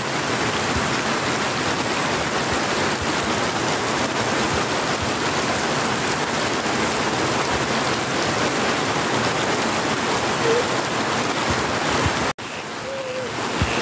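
Heavy rain pouring steadily onto a flooded yard, splashing into standing water. It is an even, dense hiss with a sudden brief cut-out about twelve seconds in, after which the rain sounds a little softer.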